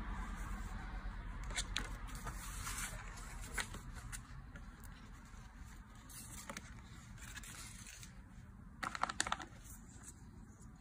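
Paper and cardboard rustling and crinkling as the inserts of a dog gift box are handled, with a short cluster of sharp crackles near the end.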